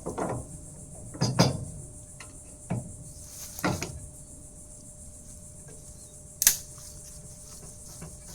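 A few dull knocks and clanks of metal tools and parts being handled on a hydraulic cylinder, with one sharp click about six and a half seconds in, over a steady high chirring of crickets.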